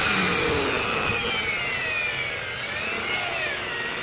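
Angle grinder fitted with a foam buffing pad, running against a freshly painted 2K urethane scooter fender panel to polish it. A motor whine over the rubbing of the pad, wavering slowly up and down in pitch.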